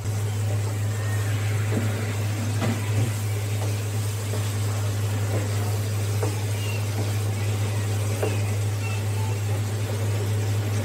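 Slices of raw mango simmering in mustard oil and sugar syrup in an open pan, with a soft, steady sizzle. A spatula scrapes the pan a few times as it turns the pieces. A steady low hum runs underneath.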